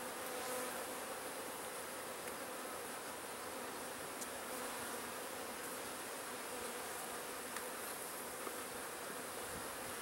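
Honeybees buzzing in a steady, even hum around an open hive, a colony stirred up by a frame inspection and smoking.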